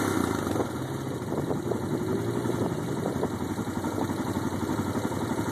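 ATV engine idling steadily, a low, fast-pulsing run that neither rises nor falls.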